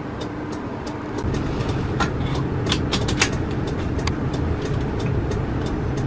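Motorhome driving on a country road, heard from inside the cabin: a steady rumble of engine and road noise that grows a little about a second in, with scattered sharp rattling clicks.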